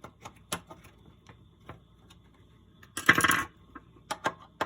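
Small metal parts being handled: scattered light clicks and taps of screws and a screwdriver, with a short metallic rattle about three seconds in, the loudest sound.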